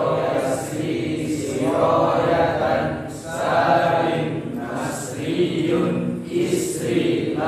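A group of voices reciting Arabic verb conjugation patterns (tasrif) in unison, a rhythmic chant in short repeated phrases.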